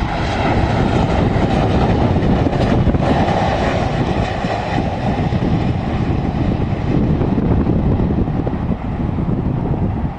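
Jet airliner's engines on landing: a loud, steady rush of engine noise.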